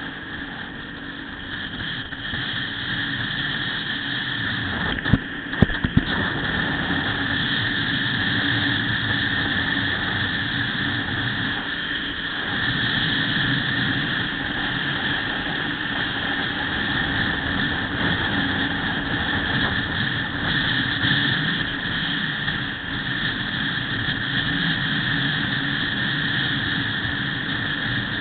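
Motorcycle running at expressway speed, its engine mixed with steady wind noise, growing louder over the first several seconds as it picks up speed. Two sharp knocks come about five to six seconds in.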